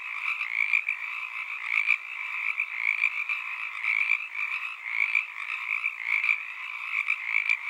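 A dense chorus of frogs calling, fairly high-pitched, swelling and fading about twice a second.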